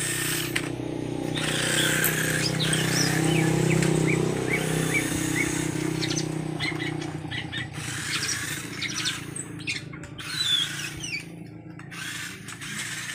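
Electric motor of a toy off-road RC car whirring as it drives across tiles, loudest in the first few seconds and fading as the car moves away. Birds chirp throughout.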